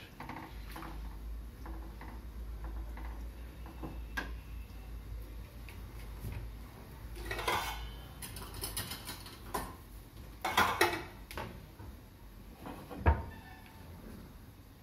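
A wooden spatula stirs in a metal pan of liquid, followed by scattered clatters and knocks of kitchen utensils, with a sharp knock a little before the end.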